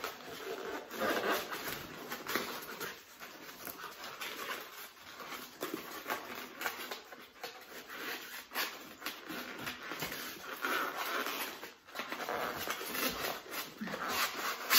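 Packaging being handled as an item is worked out of a tightly wrapped parcel by hand: irregular rustling and crinkling with scattered small crackles and light knocks.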